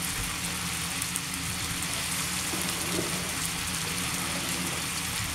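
Scallops and chorizo frying in oil and garlic butter in a frying pan: a steady sizzling hiss, with a low steady hum underneath.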